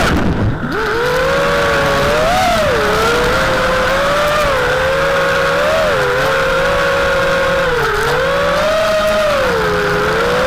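FPV quadcopter's brushless motors and propellers whining, the pitch rising and falling with the throttle. Just after the start the pitch dips sharply and sweeps back up, as the throttle is cut and punched again.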